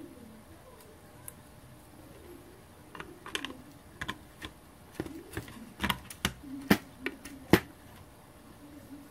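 Sharp plastic clicks and taps as a small two-port USB board is handled and pressed into a slot in a 3D-printed plastic case. There are about a dozen, starting about three seconds in, and the loudest two come near the end.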